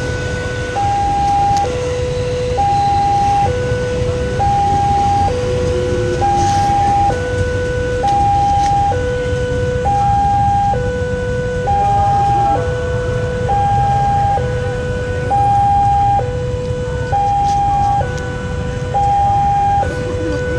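The new warning siren of a railway level crossing sounding a steady two-tone hi-lo alarm, switching between a higher and a lower tone about once a second. Under it runs a continuous low traffic rumble.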